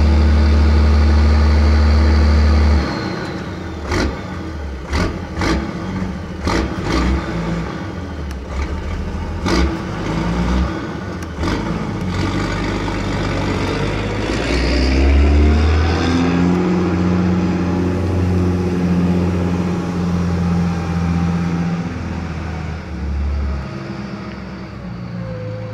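Unimog diesel engine running, its loud steady note dropping away suddenly a few seconds in, with a series of sharp knocks over the next several seconds. Partway through the engine note rises and then holds steady at the higher speed.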